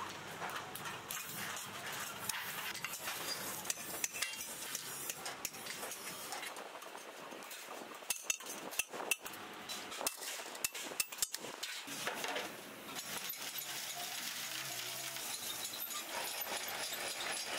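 Metal-on-metal clinking and tapping: a busy run of small sharp knocks, with a cluster of louder clicks about eight to eleven seconds in.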